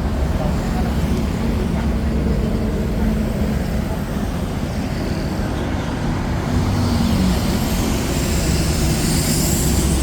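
Steady street traffic: vehicle engines running and passing, as a continuous low rumble.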